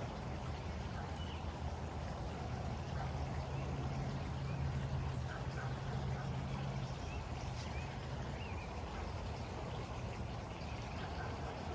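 A waterfall running steadily, a constant deep rush of falling water, with faint short bird chirps scattered over it.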